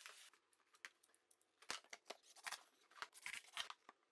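Faint, scattered clicks and light scrapes of wood being handled as a board strip is set into a gap in an old plank subfloor.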